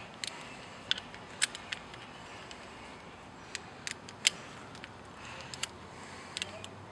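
Scattered sharp metallic clicks and clinks of a socket, extension and ratchet being handled, over a steady hiss.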